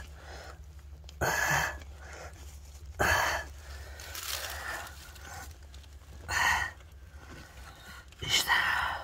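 Hand tools scraping and breaking into stones and old horasan lime mortar in a dug cairn. About five short, rough bursts come a second or two apart, over a steady low rumble.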